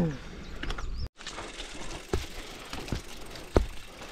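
Mountain bike on the move, with its freehub ratchet ticking and a few sharp knocks from the bike over a steady hiss. The sound cuts out completely for a moment about a second in.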